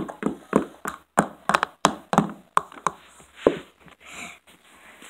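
Plastic toy horse figurine tapped against a hard floor in a walking rhythm, about three taps a second, stopping about three and a half seconds in.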